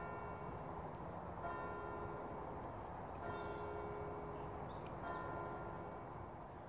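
Distant church bells ringing, faint, with a stroke about every second and a half to two seconds over a low steady background noise.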